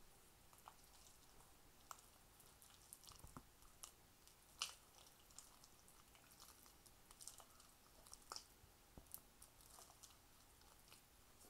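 Faint wet squelches and scrapes of a thick creamy chicken filling being scooped with a silicone spatula and dropped into a puff-pastry-lined glass pie dish, with scattered small clicks, the sharpest about four and a half seconds in.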